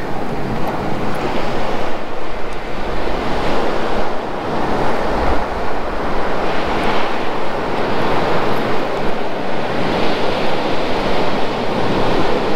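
Sea surf washing onto a sandy beach, a steady rushing noise that swells and eases every few seconds, with wind buffeting the microphone.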